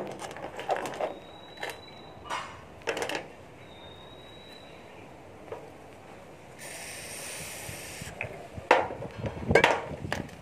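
Small metal parts of a stripped-down spinning fishing reel clicking and tapping as they are handled and set down on a concrete floor, the loudest knocks near the end. A steady hiss lasting about a second and a half comes midway.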